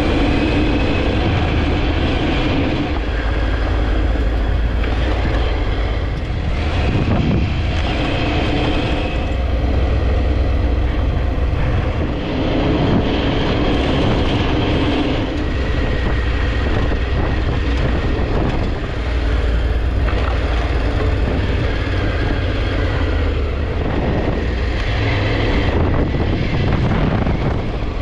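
Triumph Tiger 900 Rally Pro's three-cylinder engine running under way on off-road tracks, with heavy wind rumble on the microphone. The engine note rises and falls with the throttle, and the mix shifts every few seconds.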